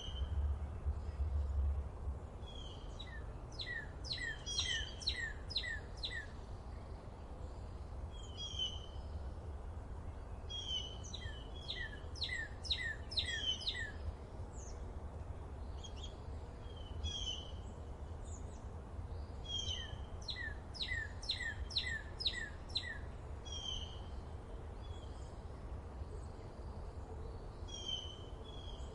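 Forest birdsong: a bird repeats a quick phrase of about five or six notes every few seconds, with single chirps from other birds in between. A steady low rumble of background noise runs underneath.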